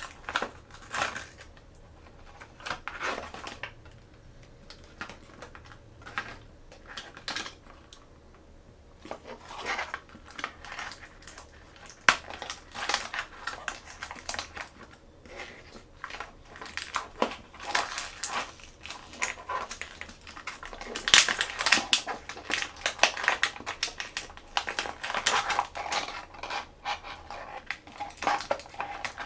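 Shopkins blind-bag packaging and small plastic toys being handled and opened: irregular crinkles, taps and clicks, sparse at first and busier from about halfway on.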